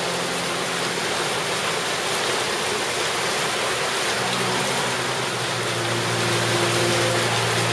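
Heavy rain pouring onto a flooded patio, a steady hiss of drops splashing into standing water. A low, steady hum comes in about halfway through.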